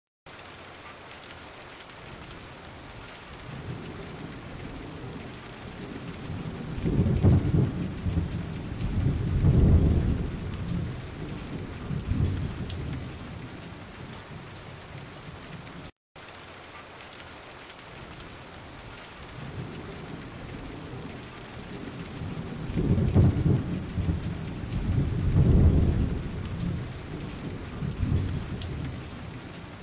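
Steady hiss of heavy rain with long, low rolls of thunder swelling twice in a row. After a brief dropout halfway through, the same stretch of rain and thunder repeats as a loop.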